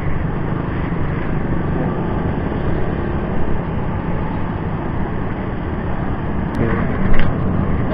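Motor scooter engine running steadily, with street traffic around. A sharp click about six and a half seconds in and a short louder sound just after.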